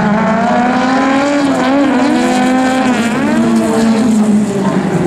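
Engines of several jokkis folk-race cars revving hard together as the pack races on a gravel track. Their overlapping pitches rise and fall as the drivers accelerate, lift and change gear.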